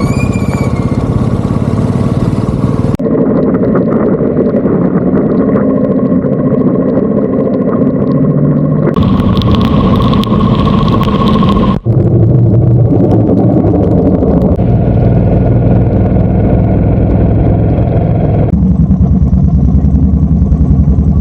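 Royal Enfield Bullet 350 single-cylinder engine running under way, with wind and road noise, in several stretches joined by abrupt cuts where the engine note and noise change suddenly.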